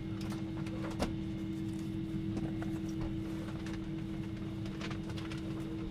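Airliner cabin hum of a Boeing 777-300 at the gate after landing: a steady drone with a constant tone, which cuts off near the end, under scattered clicks and knocks.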